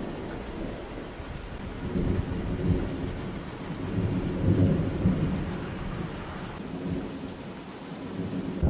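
Thunder rumbling in low, rolling swells, about two seconds in and again around four to five seconds, over a steady hiss of rain.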